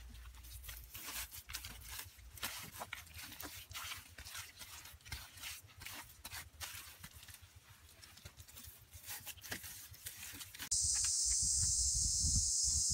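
Quiet scattered crackles and rustles of wet mud and sticks being worked by hand into a bamboo wattle wall. About ten seconds in, a loud, steady high insect drone starts abruptly, joined by a few low thuds near the end.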